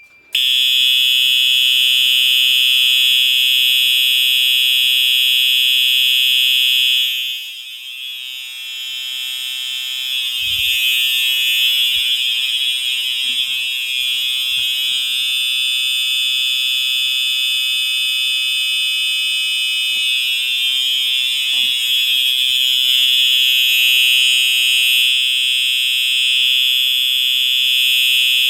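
Simplex TrueAlert fire alarm horn sounding on continuous: one unbroken, real loud buzzing tone that comes on a moment in. The horn has tape over it. It turns briefly quieter about seven seconds in, then comes back up.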